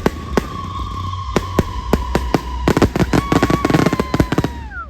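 Fireworks display: a string of sharp bangs with a dense burst of rapid crackling in the middle. A long high whistling tone slides slowly down in pitch over it and drops away near the end.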